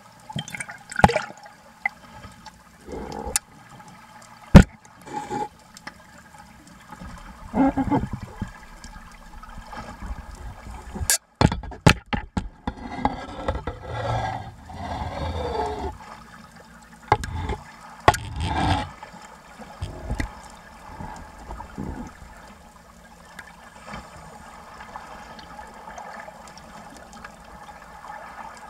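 Sea water sloshing and bubbling around a camera held at the surface, heard from under the water, with scattered sharp knocks in the first half. The last several seconds settle into a quieter, steady water noise.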